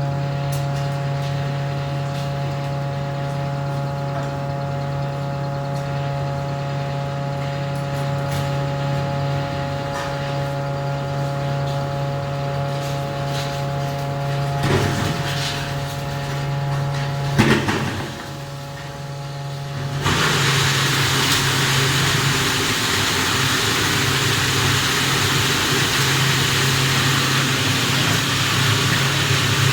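Electric ice block crusher running with a steady motor hum and a few knocks past the middle. About two-thirds of the way through, a loud, even rushing noise cuts in over the hum.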